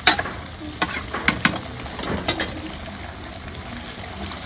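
Metal spatula knocking against the pan while stirring frying chicken: about six sharp clacks in the first two and a half seconds, then quieter.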